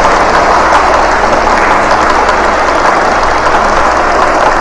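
A large assembly applauding: dense, steady clapping from many hands, loud throughout.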